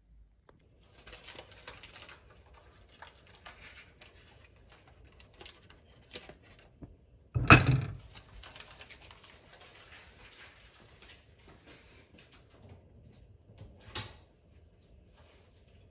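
Cookware being handled on a stovetop: scattered light clicks and ticks, with one loud knock about seven and a half seconds in and a smaller one near the end.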